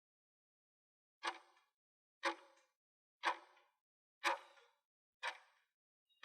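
Clock-like ticking sound effect, one sharp tick each second starting about a second in, typical of a countdown timer for answering a quiz question.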